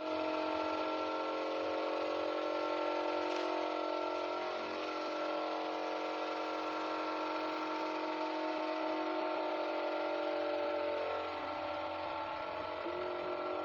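A steady mechanical whir made of many held tones, which shifts and drops slightly about eleven seconds in.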